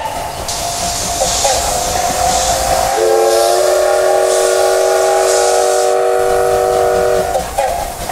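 Steam whistle of a C12-class steam locomotive blowing one long note. A lower, deeper chord of tones joins about three seconds in and holds for about four seconds, then the whistle cuts off near the end. Steam hisses throughout.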